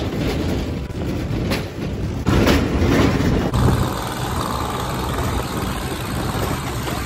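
A motor vehicle running: a steady, noisy rumble that shifts abruptly a couple of times.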